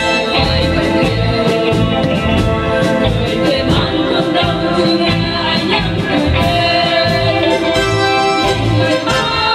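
A group of women singing a Vietnamese song in chorus, a lead voice carried over a microphone, over instrumental accompaniment with a steady beat.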